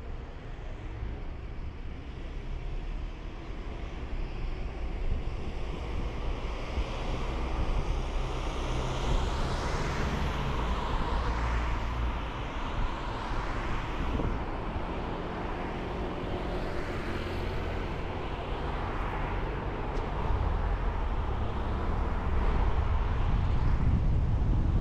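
A car driving on the road: steady tyre and wind noise over a low rumble. The hiss swells and fades in the middle and grows louder again near the end.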